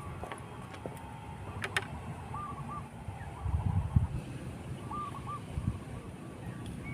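A bird calling a short phrase of three or four quick hooting notes, repeated about every three seconds over steady outdoor background. A louder low rumble comes around the middle.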